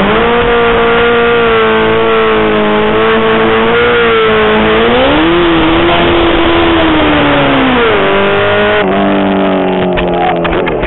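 Sportbike engine held at high revs during a burnout, the rear tyre spinning and smoking on the pavement. The revs hold steady, climb briefly about five seconds in, then drop back near eight seconds.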